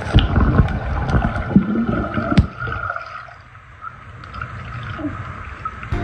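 Muffled underwater splashing and bubbling of a child swimming beneath a swimming pool's surface, busy for the first three seconds and then quieter, under a thin steady hum.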